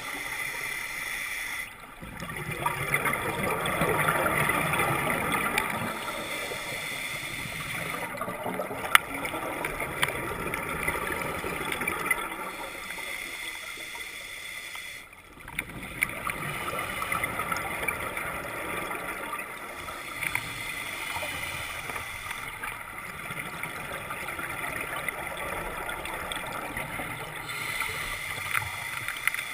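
Scuba diver's exhaled regulator bubbles heard underwater through the camera housing: stretches of bubbling that come back about every six or seven seconds, with quieter breaths between.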